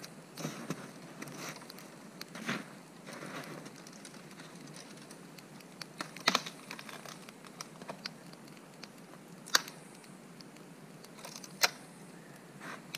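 Footsteps crunching in snow, then dry dead twigs being broken off a tree: three sharp snaps in the second half, with small cracks and rustles between them.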